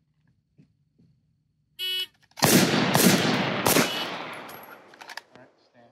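A shot timer's electronic beep, then about half a second later gunshots from the line of handgun and carbine shooters. Three loudest shots come roughly half a second apart, and the echo dies away over about a second and a half.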